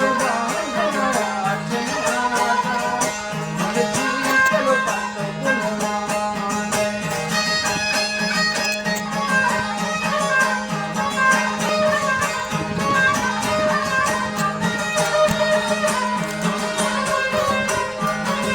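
Traditional folk-style background music with melodic string instruments over a steady drone.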